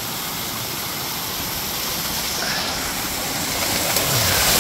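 Creek water running through a corrugated steel culvert pipe, a steady rushing that grows louder near the end.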